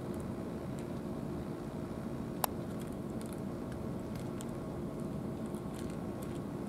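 A cat eating food from a bowl, faint chewing ticks and smacks, with one sharp click about two and a half seconds in, over a steady low mechanical hum.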